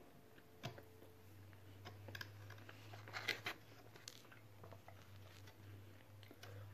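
Faint eating and handling sounds of a soft pretzel being chewed and pulled apart by hand: scattered small clicks, with a short burst of rustling about three seconds in, over a low steady hum.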